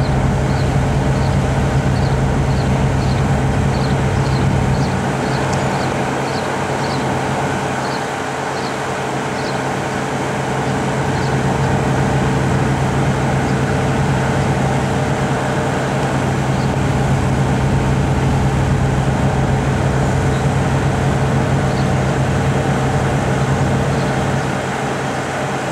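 Steady low rumble and hum of standing diesel locomotives idling. A series of short high chirps comes over it during the first ten seconds or so, with a few more later.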